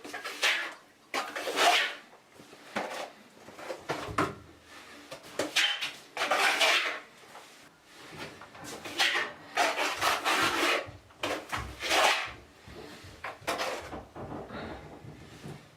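Repeated rough scraping strokes, about ten of them, each lasting up to a second, at uneven intervals.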